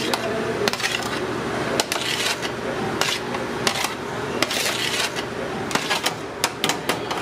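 Metal spoon scraping and clinking against an aluminium sheet pan as roasted peppers are scooped off it into a blender jar, with scattered sharp clinks over a steady kitchen background noise.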